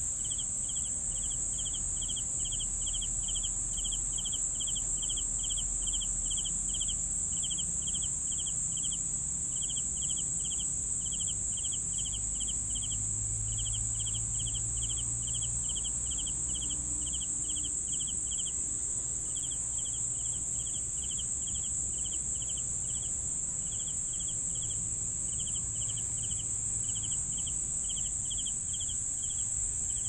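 Crickets at night: a steady high-pitched trill throughout, with a cricket chirping about three times a second in runs broken by short pauses. A faint low rumble sits underneath.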